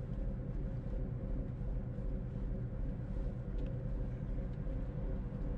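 Engine of a former steel fishing trawler idling steadily: an even low pulse with a steady hum above it.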